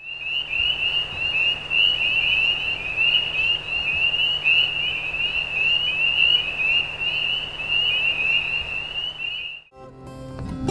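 Chorus of many frogs calling at once: a dense, steady mass of short, high, rising peeps overlapping one another. It cuts off about a second before the end, and strummed acoustic guitar music begins.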